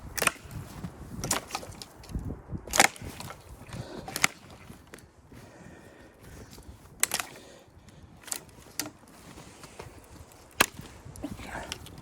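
A series of sharp knocks and cracks, about seven separate strikes at uneven intervals, over a low background.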